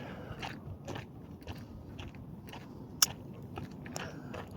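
Footsteps crunching over rocky, gravelly ground at a walking pace, a short crunch about every half second, with one sharper click about three seconds in.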